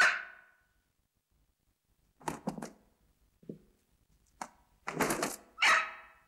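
A rooster struggling: a squawk at the start, then several separate short thuds, scuffles and knocks with brief pauses between.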